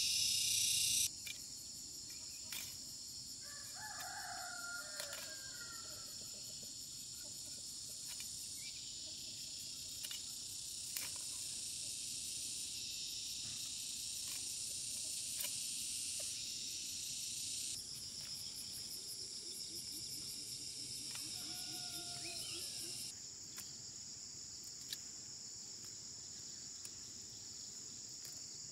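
A steady, high-pitched chorus of insects, with a rooster crowing twice, about four seconds in and again around twenty-one seconds. A few faint sharp taps come from a blade knocking peanut pods off the roots.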